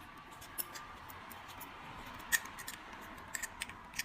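Small scattered clicks and light scrapes of metal tools on a windproof lighter's parts during bench repair, one sharper click about two seconds in.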